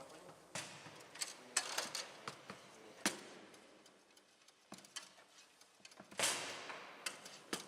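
Play on a Bonzini foosball table: irregular sharp clacks and knocks as the ball is struck and passed by the figures on the rods, with a harder hit about six seconds in.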